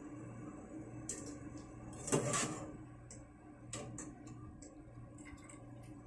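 Wire spider strainer knocking and scraping against a metal pot while boiled cabbage is scooped out of the water. The loudest clatter comes about two seconds in, with a few lighter clicks around it, over a low steady hum.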